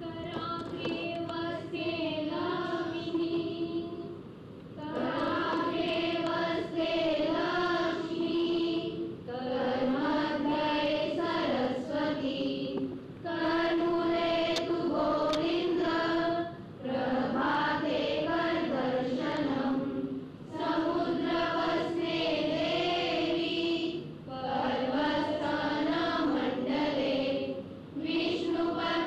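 A group of schoolchildren singing a prayer in unison, phrase by phrase, with a short breath-pause every three to four seconds.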